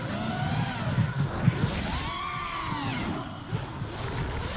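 FPV quadcopter motors whining in the air, the pitch rising and falling in repeated sweeps as the throttle is worked.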